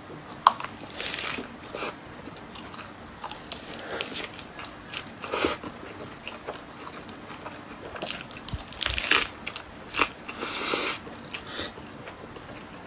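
Biting and chewing a rice parcel wrapped in raw green leaves (dongbei fan bao): irregular crisp crunches of the leaf between the teeth, louder bursts clustering about two thirds of the way through.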